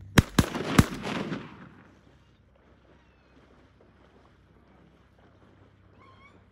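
Three shotgun shots fired in quick succession, all within about two-thirds of a second. Their echo rolls away over about a second.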